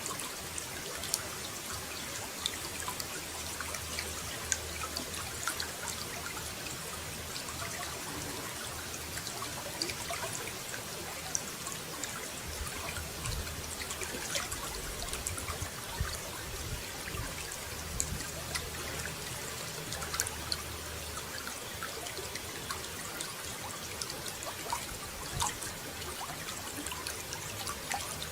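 Water running steadily, trickling and splashing with many small droplet ticks.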